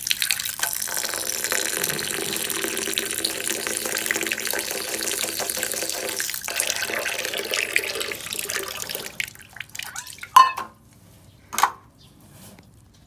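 Water running steadily, like a tap into a sink, stopping about nine seconds in; two short sharp knocks follow.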